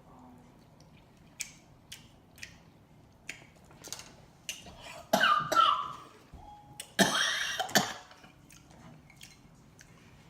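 A woman chewing with small wet mouth clicks, then coughing in two harsh bursts about five and seven seconds in, choked by hot wasabi sauce.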